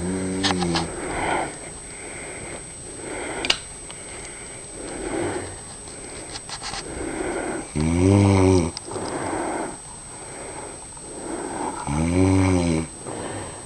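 A woman snoring in her sleep: three low, buzzing snores about four seconds apart, with softer breathing between them.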